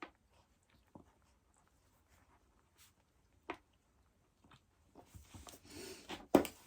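Faint scattered clicks, then rustling and shuffling of handled bedding from about five seconds in, with one sharp knock near the end.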